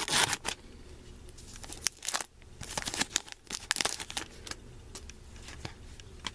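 Foil Pokémon booster pack wrapper being torn open and crinkled, in several short bursts over the first four seconds, then lighter rustling and ticks.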